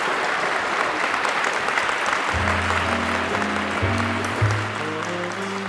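A crowd applauding, with slow music coming in about two seconds in: low sustained bass notes under a few held higher notes, while the clapping carries on.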